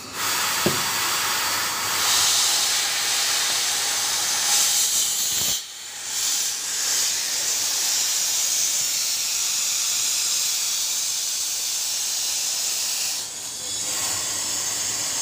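Compressed air hissing steadily through the air line and valve of a rubber rolling press for air suspension struts. It drops out for a moment about five and a half seconds in, then resumes.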